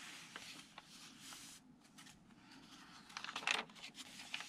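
Pages of a handmade paper journal with fabric-ruffled edges being turned by hand, with soft paper rustling and a louder rustle of the page about three and a half seconds in.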